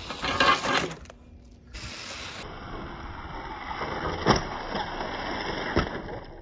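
Toy RC rock crawler's small electric motor running and its rubber tyres rolling on concrete, with a loud rush about half a second in. A sharp knock a little over four seconds in as it lands after jumping off a cardboard ramp, and another knock near the end.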